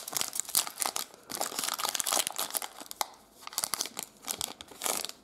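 Foil Pokémon booster pack wrapper being torn open and crinkled by hand: a dense run of irregular crackles, with a short lull about three seconds in.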